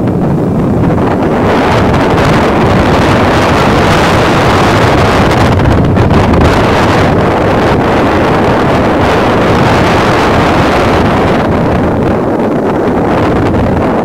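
Rough surf breaking and washing up a sandy beach, with strong wind buffeting the microphone. A loud, continuous rush that swells about two seconds in and eases a little near the end.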